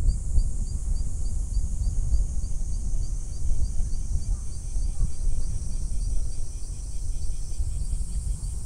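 Low, uneven rumble under a steady high-pitched buzz of summer insects, with a rhythmic insect chirp about three or four times a second.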